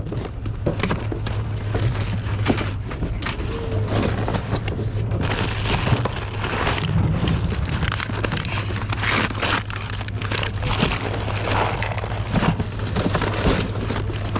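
Boxes and bags of fabrics and household goods being rummaged through: rustling, crinkling and scattered knocks and clatters over a steady low hum.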